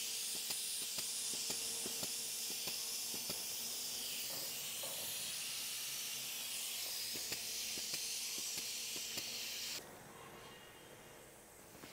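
Compressed air hissing steadily through a tyre inflator into an old space-saver spare tyre, stopping abruptly about ten seconds in; a faint hum continues underneath. The tyre is not building pressure: the gauge still reads only about 10 psi despite the air going in.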